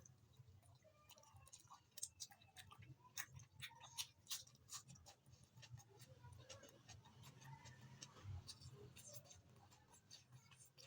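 Faint close-up eating sounds of rice with chicken curry: chewing with irregular sharp clicks, busiest in the first half.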